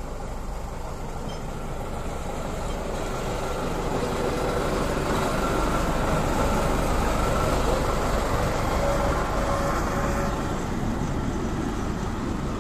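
Small Kö-class diesel locomotive on 600 mm narrow-gauge track passing close by with its coaches, engine running and wheels rolling on the rails. It grows louder to a peak around the middle as it goes past, then eases off slightly near the end.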